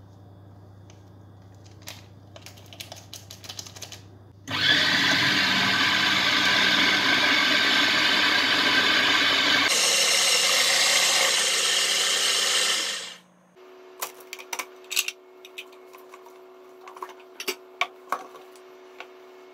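Electric food chopper's motor running, blending ricotta, cream cheese, sugar and eggs into a smooth cheesecake batter. It starts abruptly about four and a half seconds in, its note shifts near the middle, and it winds down and stops after about eight seconds. It is framed by light clicks and knocks of the bowl and lid being handled.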